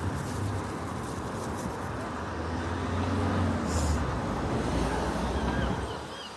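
Road traffic, with a vehicle passing that swells about three to five seconds in and fades toward the end, and wind buffeting the microphone. Faint short bird chirps come in near the end.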